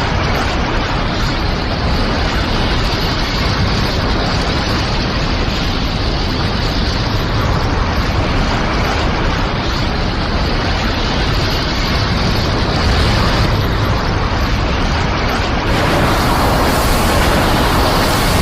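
Anime battle sound effects: a steady, loud, dense rush of noise with no clear separate hits. About fifteen and a half seconds in it turns brighter and hissier.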